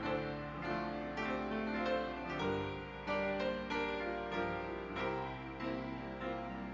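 Acoustic grand piano playing slow, quiet music, with long held notes and chords.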